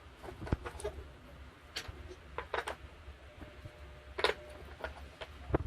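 Wooden puzzle pieces clicking and knocking as they are handled, in about a dozen light, irregularly spaced taps over a low steady hum.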